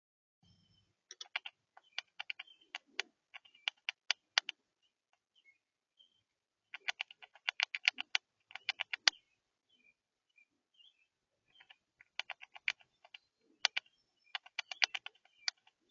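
A bird pecking at the feeder in three quick bouts of sharp taps, several a second, with a few faint chirps between the bouts.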